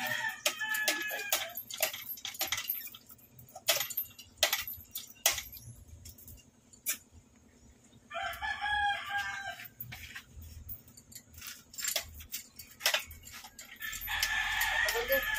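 A rooster crowing, one call about eight seconds in and another near the end, over scattered sharp clicks and knocks.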